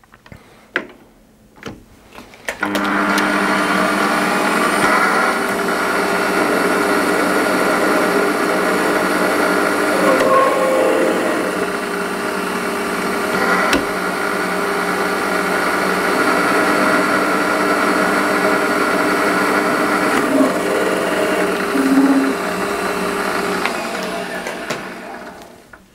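Warco WM180 metal lathe running, its chuck spinning while the turning tool cuts a small shaft down to 6 mm. The motor and gearing whine steadily. It starts a couple of seconds in, after a few clicks, and runs down near the end.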